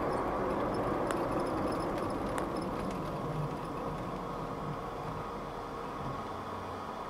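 Cabin noise of a 1989 Mercedes 300 TE 4MATIC's straight-six engine and tyres at low town speed, steadily fading as the car slows. Two light clicks are heard, about a second in and again a little later.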